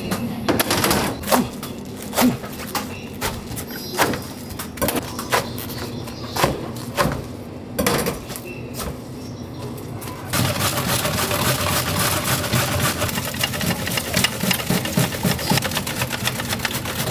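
Scattered knocks of kitchen handling, then from about ten seconds in a fast, even run of rasping strokes: cabbage being shredded on a hand slicer into a metal mesh strainer.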